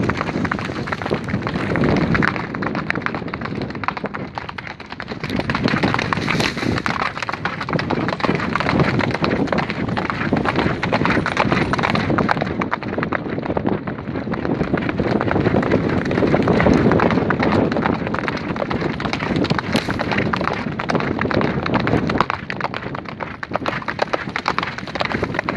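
Hoofbeats of two horses running fast on a hard track, heard from the saddle of one of them: a dense, continuous drumming of hooves with rushing noise underneath.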